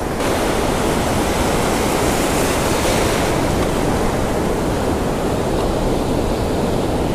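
Rough ocean surf: whitewater washing all around, a loud, steady rushing of water.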